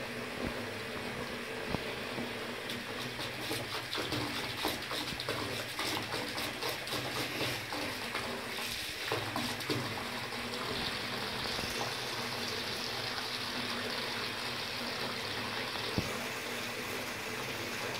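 Water running steadily from a tap, with many small irregular splashes and clicks.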